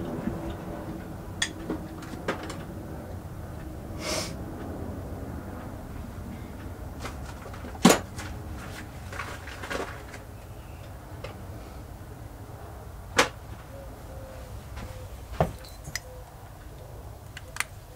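Scattered sharp clicks and knocks of small hand tools and metal parts being handled while working on the screws of a nitro RC engine, the loudest about eight seconds in, over a steady low hum.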